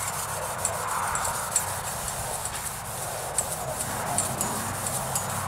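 Red Scotch-Brite pad scrubbing back and forth over a stripped grill shell wetted with WD-40: a rasping rub that swells and fades with the strokes, with scattered light ticks.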